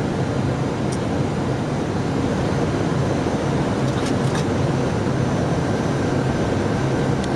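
Steady cockpit noise of an airliner on approach: air rushing past the nose over a low engine hum, with a few faint clicks.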